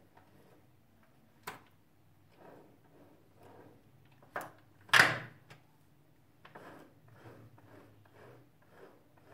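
A 1300cc car's five-speed manual gearbox being shifted by hand on its remote gear lever, from fifth toward reverse, with the selector mechanism clicking and clunking. There is a sharp click about a second and a half in, then two clunks close together around the middle, the second the loudest, and a lighter click after them.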